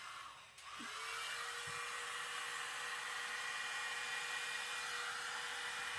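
Very small hairdryer switched on: its motor spins up about half a second in and settles into a steady whine over the hiss of blowing air.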